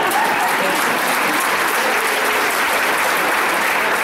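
Theatre audience applauding, a steady wash of many hands clapping.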